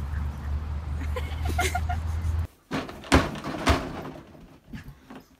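A steady low rumble that cuts off abruptly about two and a half seconds in, then two loud sharp thumps about half a second apart, followed by a few quieter knocks.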